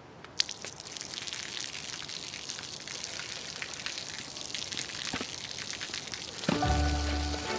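A stream of water splashing onto wet pavement: a steady spattering hiss full of small drips and splashes. About six and a half seconds in, music with a low bass and ringing notes comes in over it.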